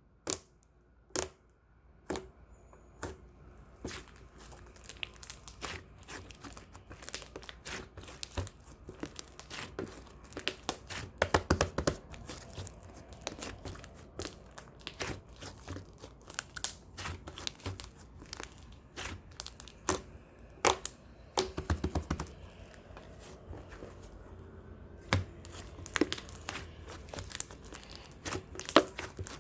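Glitter slime being squished and stretched by hand, with irregular sticky pops and crackling clicks, denser in a few bursts.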